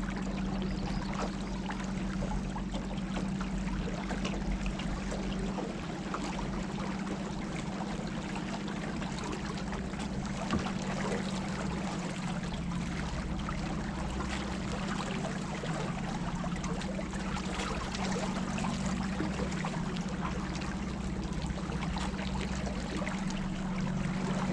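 River water rushing and splashing around a boat on the move, a steady crackly wash with a low, even hum underneath.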